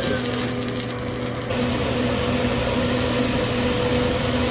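Steady hiss of meat and vegetables sizzling on a hot teppanyaki griddle, over a steady low hum. In the first second or so there is a brief patch of crackling from the flame dying down on the griddle.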